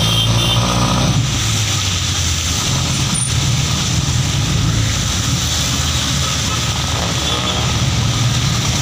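Jeepney engine running steadily as it drives through traffic, with the continuous hiss of tyres on a rain-soaked road and falling rain.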